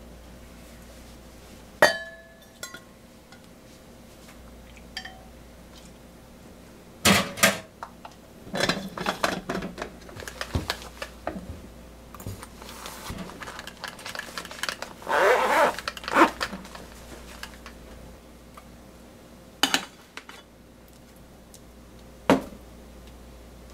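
Kitchen handling clatter: metal tongs and containers clinking against a glass pot and a stainless soup jar, with a ringing clink about two seconds in and scattered knocks after it. There is a short stretch of rustling in the middle as the jar and its fabric pouch are handled.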